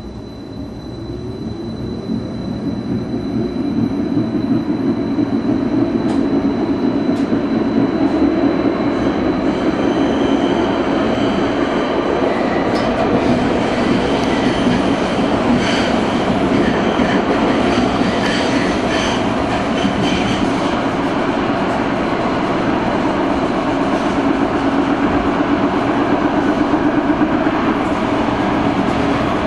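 Bybanen Stadler Variobahn light-rail tram heard from inside the passenger car. The motor whine rises as the tram speeds up over the first few seconds, then settles into steady running noise of wheels on rail. Through the middle stretch there are high squealing tones and rattling.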